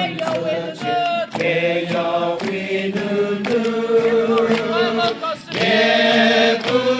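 A group of voices singing a Christian revival song together, with long held notes, over a steady beat of about two to three strokes a second.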